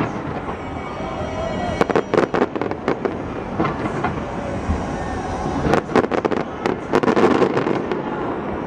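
Aerial fireworks display: repeated sharp bangs and crackling bursts over a steady rumble, in dense clusters about two seconds in and again around six to seven seconds in.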